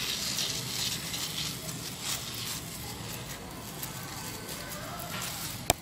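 Hand-held spray bottle misting rose leaves: a run of hissing squirts, with a sharp click near the end.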